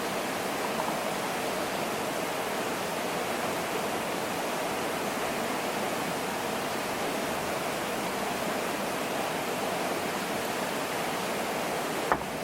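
A steady, even rushing noise with one sharp click near the end.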